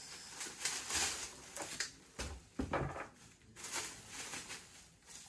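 Plastic bubble wrap rustling and crinkling in the hands as it is pulled off a wrapped object, in irregular bursts.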